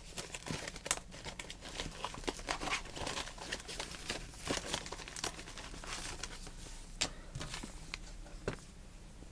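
The original retail package of 741 op-amp chips being handled, crinkling and crackling with many irregular small clicks.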